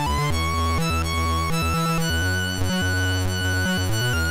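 Chiptune demo music played by a Commodore 64's MOS 6581 SID sound chip. A lead melody slides up between its notes over a shifting bass line.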